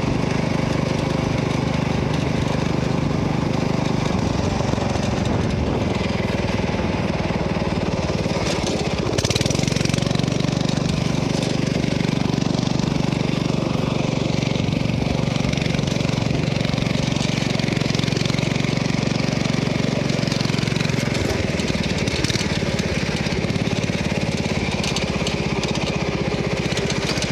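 Riding lawnmower's engine running under way, a steady low hum that gets louder about nine seconds in and eases back about twenty-one seconds in.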